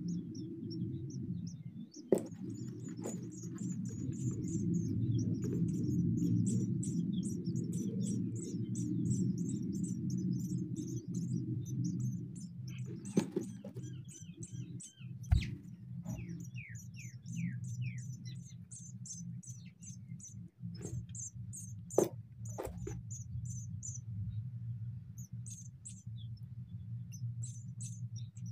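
House sparrow nestlings begging with rapid, high-pitched cheeps, joined by a few lower falling calls midway. A few sharp knocks stand out, over a steady low hum.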